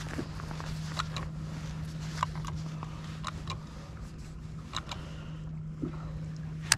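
Steady low hum of a small electric motor on a bass boat, with scattered light clicks and taps and one sharper click near the end.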